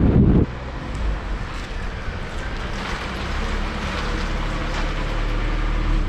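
Pickup truck running steadily, a low engine hum with light road and wind noise. A louder low rumble in the first half second cuts off suddenly.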